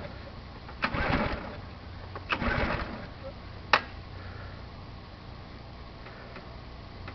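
Recoil pull-cord of a Simoniz 2350 PSI pressure washer's small gas engine yanked twice without the choke, each pull a brief whirring rattle as the engine turns over without catching, then a single sharp click.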